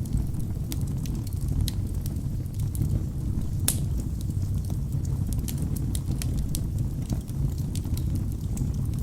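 Wood fire burning in a fireplace: a steady low rumble of flames with scattered sharp crackles and pops from the logs, one louder pop about three and a half seconds in.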